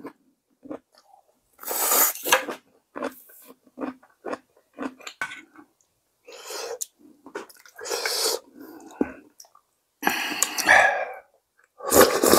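A person eating hand-torn dough soup with perilla-seed broth close to the microphone: wet chewing and mouth clicks, broken by several loud slurps about 2, 8, 10 and 12 seconds in.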